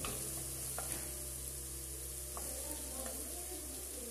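Diced onion and garlic sizzling steadily as they fry in butter in a nonstick frying pan, with a few faint clicks.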